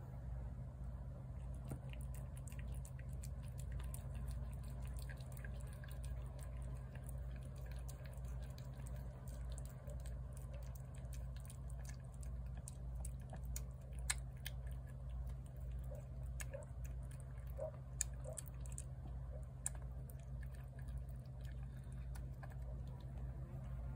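A cat eating wet food from a plate: a steady run of small, wet chewing and lapping clicks that begins about a second and a half in, with a few sharper clicks, over a steady low rumble.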